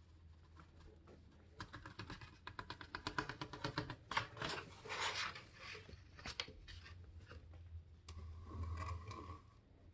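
Dirt and debris from a vacuum's bin being scraped and tapped out onto a scale tray: a run of quick rattling clicks, then rustling scrapes and a few sharp taps, faint, over a low hum.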